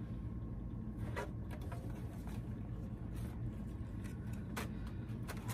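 A few faint rustles and taps of cardboard as a shoebox is lifted out of a shipping box, over a steady low hum.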